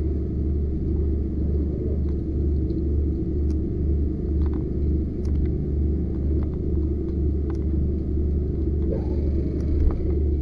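A steady low engine rumble with a slight, regular throb, with a few faint clicks and knocks over it.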